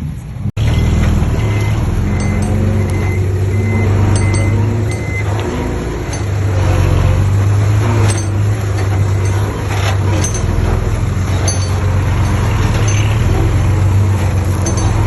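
Diesel engine of heavy earthmoving machinery running steadily. A reversing alarm beeps about twice a second for a few seconds, starting about two seconds in, with scattered metallic clinks.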